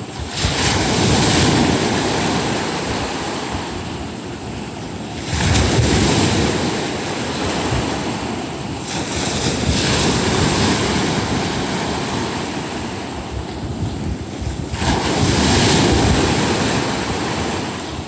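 Sea waves breaking on the shore. Four waves surge in and wash back, each swelling and fading over a few seconds, with wind rumbling on the microphone.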